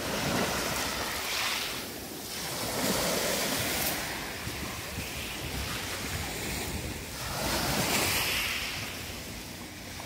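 Small sea waves washing over a pebble beach, swelling and falling back in surges a few seconds apart, with wind noise on the microphone.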